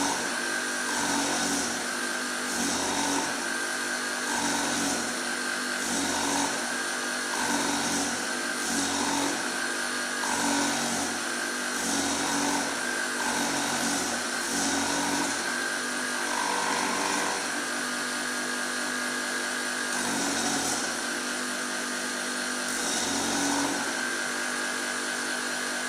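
Surface grinding machine running, its wheel giving a steady whine. A gritty grinding hiss swells and fades about once every second and a half as the reciprocating table carries the workpiece under the wheel in a finishing pass. The hiss drops out for a few seconds past the middle, then comes back twice.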